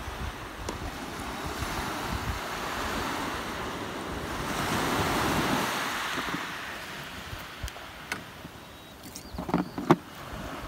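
Ocean surf washing up the beach, swelling to its loudest in the middle and easing off again, with wind rumbling on the microphone. Near the end come a few sharp clicks and knocks.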